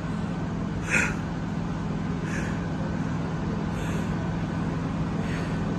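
Steady low rumble and hum of vehicle traffic and machinery, with a few brief, faint higher-pitched sounds about every second and a half.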